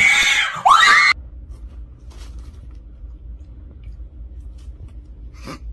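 A woman's loud, high-pitched scream rising in pitch, cut off suddenly after about a second. A low steady hum follows, with one short faint cry near the end.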